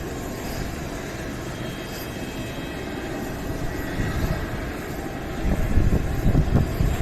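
Fixed-wing aircraft engines running, a steady drone with faint high tones, swelling into a few louder low rumbles near the end.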